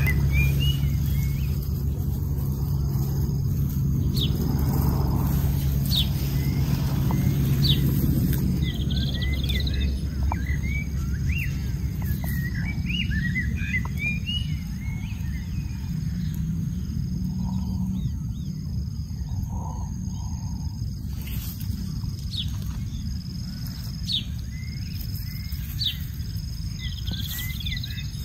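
Outdoor ambience: small birds chirping again and again over a steady low rumble, which is louder for the first several seconds and then eases off.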